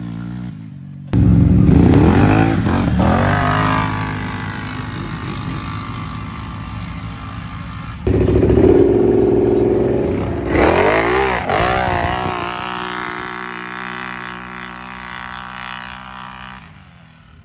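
Race ATV engines at full throttle accelerating away down a dirt drag strip. Their pitch climbs and drops through the gears, then fades with distance. The loud engine sound starts abruptly twice, about a second in and again about eight seconds in, as two separate runs.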